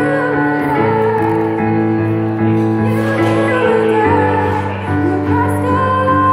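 A woman singing a slow ballad into a microphone, accompanied by held chords on a Casio Privia digital piano played through a small amplifier. The chord changes about four seconds in.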